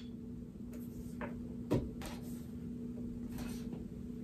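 Desk grommet knocking and scraping as it is pushed into a freshly cut hole in the desktop: a few light knocks, with one sharper knock nearly two seconds in. The grommet is a snug fit that will not go in any further. A steady low hum sits underneath.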